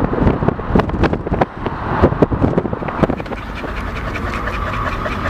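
Wind and road noise inside a moving car on a highway, with a dog panting.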